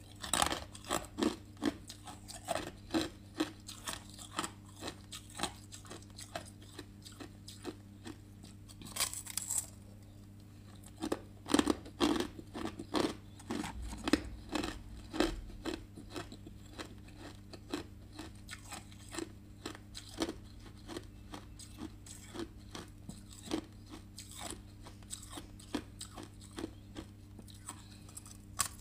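Hard ice being bitten and chewed: a rapid run of sharp, crisp crunches, loudest a little under halfway through, over a low steady hum.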